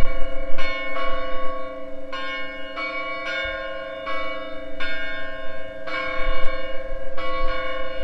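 Church tower bells ringing, several bells struck one after another roughly once a second, their tones overlapping and ringing on between strikes.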